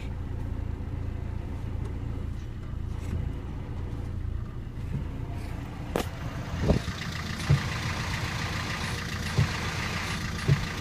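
Fiat Albea 1.3 Multijet diesel idling with the clutch pedal released, carrying a rushing rattle (a 'şarıltı') that gets louder about six seconds in, with a few short knocks. The owner traces the noise to the clutch pressure plate and disc, since it stops whenever the pedal is pressed.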